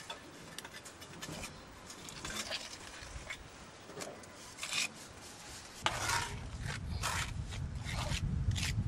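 Mason's trowel scraping and working lime mortar against stone in irregular short strokes, with a low rumble joining about six seconds in.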